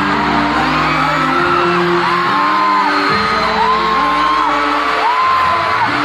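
Live K-pop concert sound: loud pop music with a crowd screaming and cheering over it. Three long held voice notes rise and fall in the second half.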